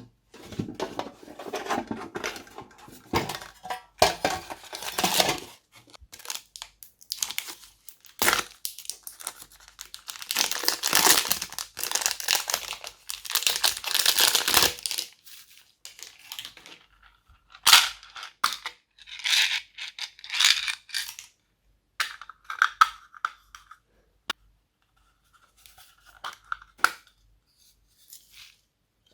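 Glossy slime being squished and stretched by hand: irregular sticky crackling with small clicks and pops, dense for the first half and in shorter, sparser bouts later.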